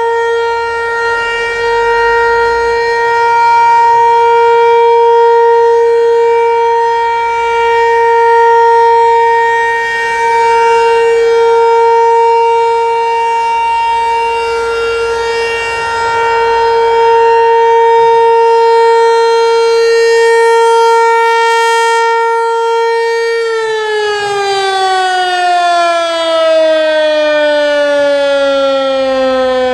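Federal Signal Equinox rotating outdoor warning siren sounding its steady single-tone alert near 465 Hz, swelling and fading slowly in loudness as it rotates. About 23 seconds in, the tone begins to wind down, its pitch falling steadily as the alert signal ends.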